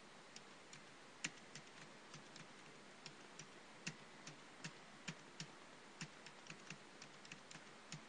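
Typing on a computer keyboard: faint, irregular keystroke clicks, about three a second, over a steady low hiss.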